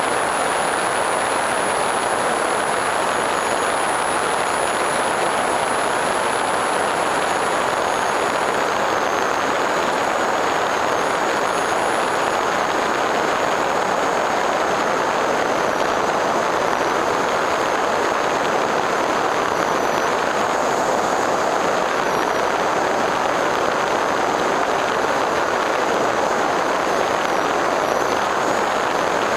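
Steady rush of airflow and pusher propeller heard from the onboard camera of an FPV Raptor electric model plane in level flight, with a thin high whine from its brushless motor that wavers slightly in pitch.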